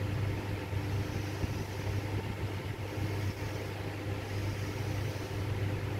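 Steady low background hum with no distinct strokes or knocks.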